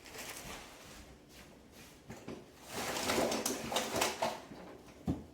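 Rustling and scraping from handling a potted orchid in loose bark mix. It is loudest in the middle, and a single short knock comes near the end.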